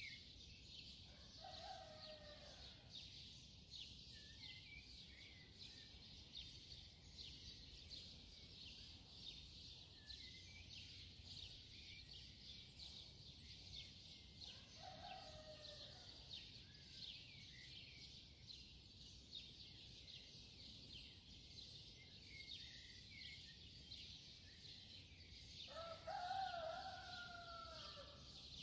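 Faint background of dense bird chirping, with a chicken calling three times: about 2 seconds in, about 15 seconds in, and a longer, louder call near the end.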